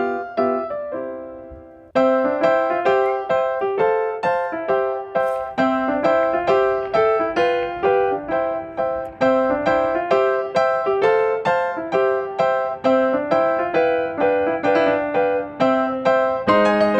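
Background music played on piano or electric piano: a chord fades out over the first two seconds, then a steady run of struck notes resumes and continues.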